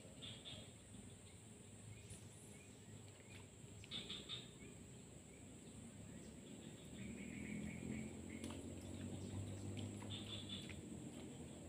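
Faint outdoor ambience with scattered short bird chirps over a steady high-pitched insect drone. A low hum swells in the second half.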